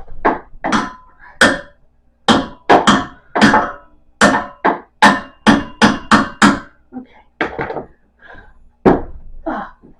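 About twenty loud, sharp strikes in quick, uneven succession, metal being hammered or whacked while a treadmill is being taken apart; a few strikes leave a brief ringing tone.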